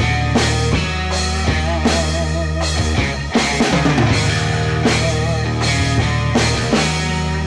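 Background music with a drum kit keeping a steady beat under sustained instrumental tones.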